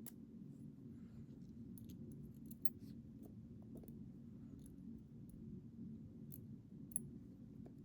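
Faint, scattered small metallic clicks and ticks of a pin-tumbler lock's parts and tools being handled, with one sharper click about seven seconds in, over a low steady hum.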